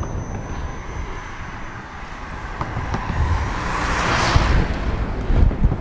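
A car passing close by: tyre and engine noise swelling to a peak about four seconds in, then fading. Wind buffets the microphone with a low rumble throughout.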